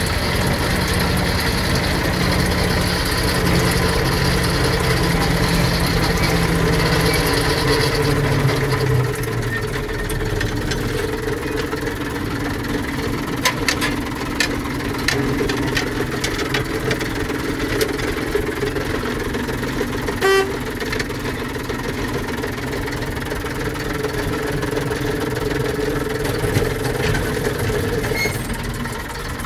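Motor Rail Simplex narrow-gauge locomotive running, heard from inside its cab. The engine note is strong for the first nine seconds or so, then eases off to a lower running sound, with a run of sharp clicks around the middle and one brief high beep about two-thirds of the way through.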